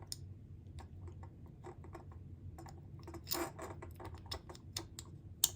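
Irregular small clicks and taps of parts being handled as the electric shaver's motor is fitted back into its housing, with a busier patch of clicking about three seconds in and one sharp click near the end.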